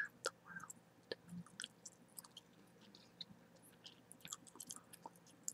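Close-miked gum chewing: faint, irregular wet clicks and smacks of the mouth and lips.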